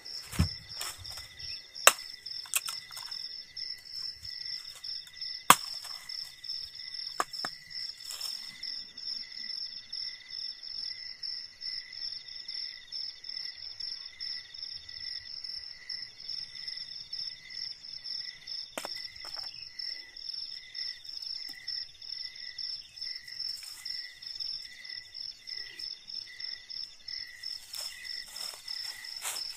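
A steady, rhythmically pulsing insect chorus, trilling at several pitches at once. Several sharp knocks in the first eight seconds and one more a little past halfway are the loudest sounds.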